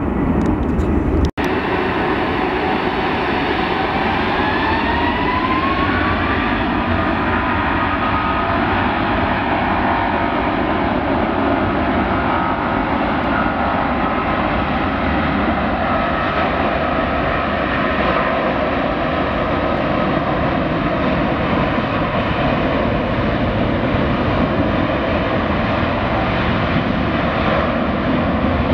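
Twin jet engines of a Boeing 777 running at takeoff power during its takeoff roll: a steady, heavy rumble with a whine that rises in pitch a few seconds in. The sound cuts out for an instant about a second in.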